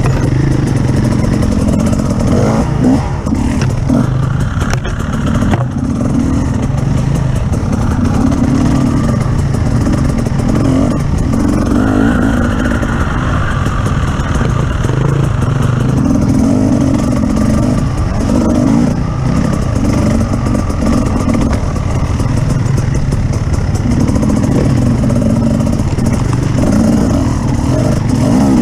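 Off-road vehicle engine under way, revving up and easing off again and again.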